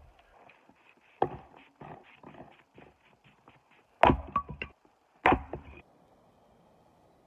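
Split firewood logs knocking and clattering against each other as they are handled: three sharp wooden knocks, about a second, four seconds and five seconds in, each followed by a short rattle of smaller knocks.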